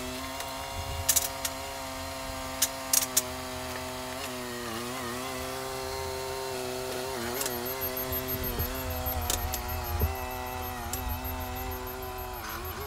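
A Mitsubishi Grendia 2.5-tonne forklift's engine running steadily, then revving a little several times from about four seconds in as it lifts and carries a load. A few short sharp clicks come in the first three seconds.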